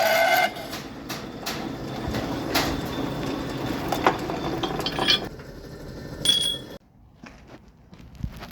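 Metal clinks and clicks from work at a lathe, over a steady mechanical hum that cuts off suddenly near the end, leaving a few faint clicks.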